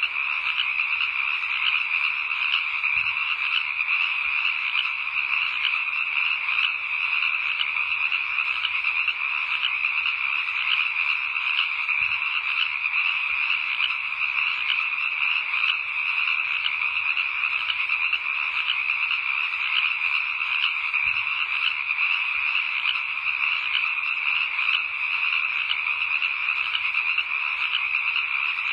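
A dense, steady chorus of frogs calling, many voices overlapping without a break.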